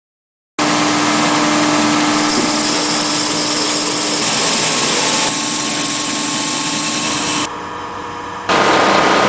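Belt sanding and polishing machine running: a loud steady hum with a harsh hiss, starting abruptly about half a second in. It shifts in tone a few times and goes quieter for about a second near the end before coming back.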